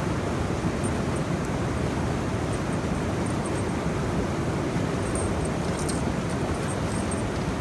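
Steady rush of river water pouring through the gaps between the needles of a needle dam, with a few faint light clicks near the end.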